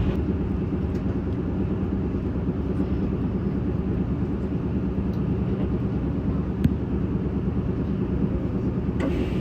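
Steady low rumble of an electric train running, heard inside the passenger car, with a single sharp click about two-thirds of the way through.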